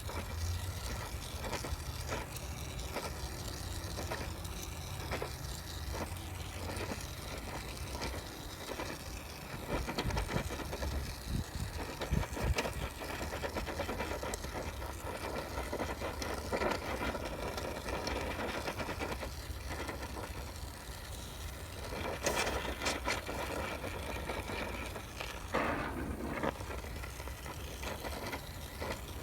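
Gas torch burning steadily while heating an aluminum transmission case for brazing with Super Alloy 5, with scattered clicks and knocks, and a few louder stretches about a third of the way in and again near the end.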